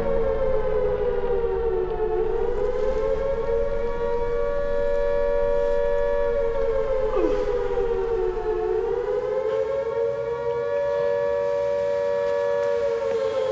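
Civil defense siren wailing, holding a steady pitch that sinks and rises again slowly twice, a few seconds apart.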